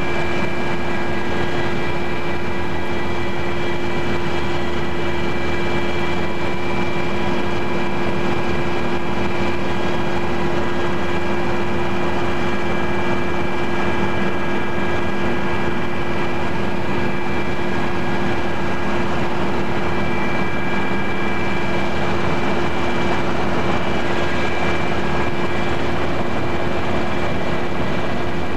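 Aircraft engine running steadily in flight, heard from inside the cabin: a constant drone with several fixed steady tones over a wide rushing noise.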